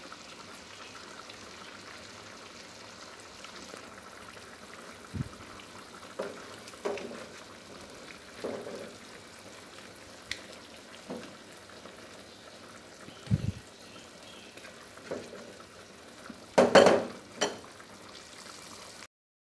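Prawn curry simmering in a frying pan, a steady bubbling hiss, while a wooden spatula stirs it with short knocks against the pan every second or so. A louder clatter comes near the end.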